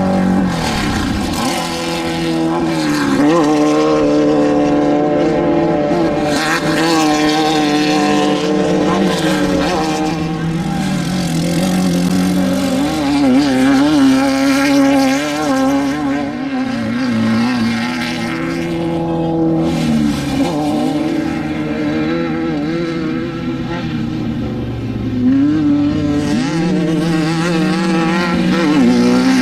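Off-road desert race vehicle engines running hard, the engine pitch rising and falling as they rev. The pitch climbs sharply about three seconds in and again near the end.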